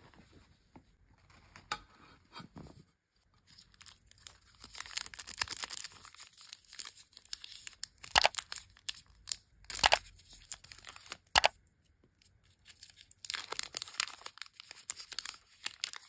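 A crinkly plastic chocolate-bar wrapper being rustled and torn open by hand. Three sharp, loud tearing snaps come about a second and a half apart in the middle, with crinkling before and after.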